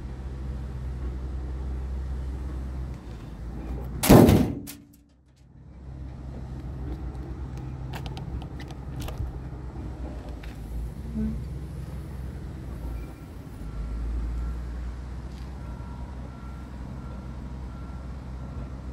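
Steady low mechanical hum with a loud, short rush of noise about four seconds in that cuts off sharply. Around eight to nine seconds in come a few clicks and knocks as the chrome latch of a truck-body compartment door is worked open.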